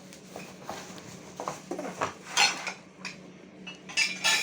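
Metal parts of a chainsaw frame kit being taken out and handled, clinking and clattering against each other, with the loudest clanks about halfway through and near the end.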